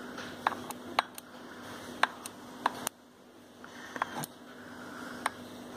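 A battery charger's terminal clip is tapped on and off a beehive frame's wire, making short, sharp sparking snaps, about ten at irregular intervals, over a steady low hum. The current heats the wire so that it melts into the wax foundation sheet.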